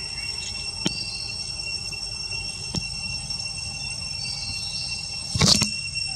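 Insects trilling steadily at several high pitches, with a few short high chirps and scattered faint clicks; a brief loud burst of noise about five and a half seconds in.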